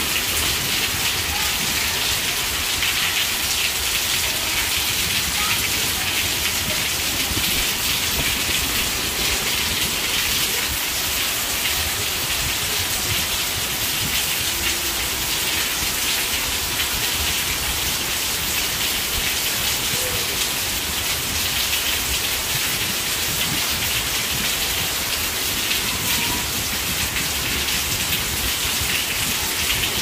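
Steady rain falling, an even, unbroken hiss.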